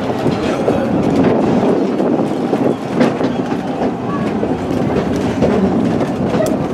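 Two-foot narrow-gauge railcar rolling along the track: a steady rumble of wheels on rail, with a few clacks over rail joints.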